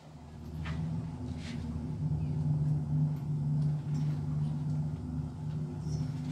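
A motor running steadily with a low, even hum that starts suddenly.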